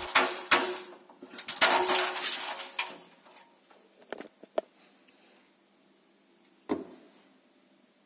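Wooden toothpicks rustling and clattering against a perforated stainless steel washing machine drum as a toothpick-studded plasticine ball is pushed into place by hand. A few light clicks follow, and a single thump near the end.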